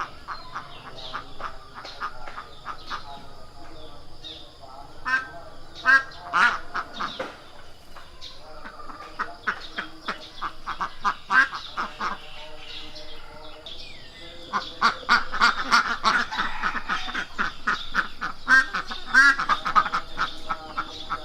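Several ducks quacking in quick, overlapping runs of short calls, busiest and loudest in the last third.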